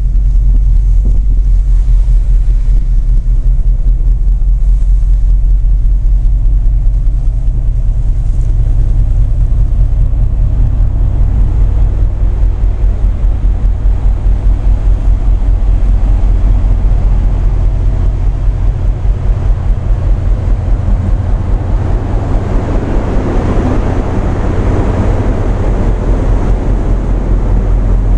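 Tugboat's heavy diesel engine running steadily: a deep rumble with fast, even pulsing. A rushing noise of wind or water builds up over the last few seconds.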